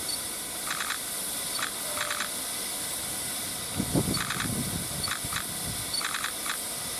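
Steady hiss of steam escaping from GWR Castle-class steam locomotive 4079 Pendennis Castle as it stands in steam. Small groups of short high chirps repeat every second or so, and a brief louder sound comes about four seconds in.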